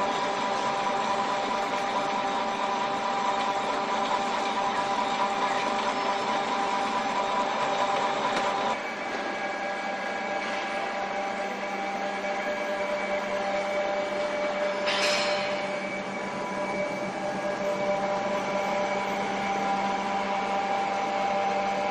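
Animal-feed processing machines running: a flat-die pellet mill, then the line's grinder and mixer. A steady mechanical hum with several fixed tones. The tone shifts and the level drops slightly about nine seconds in, and there is a brief hiss about fifteen seconds in.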